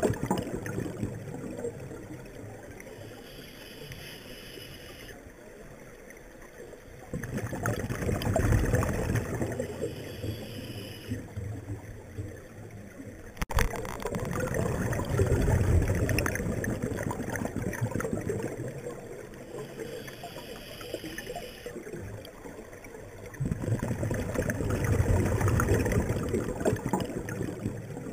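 Scuba diver breathing through a regulator underwater: a short hissing inhale, then a long rumbling rush of exhaled bubbles, in a slow cycle of about three breaths. A single sharp click about halfway through.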